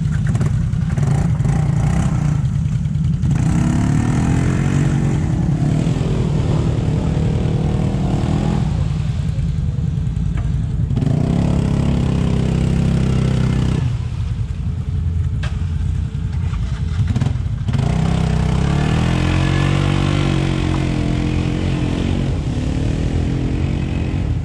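ATV engine under load, revs rising and falling in repeated surges as the quad is ridden over rough, muddy ground.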